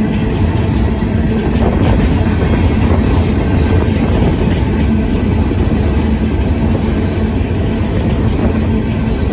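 Union Pacific freight train of empty rock cars rolling past, a loud steady rumble of wheels on the rails with some clickety-clack.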